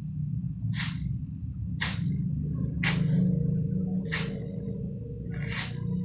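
Refrigerator compressor running with a steady low hum. Five short hisses, about a second apart, are air jetting from its copper discharge tube as a finger blocks the tube end and lets it go.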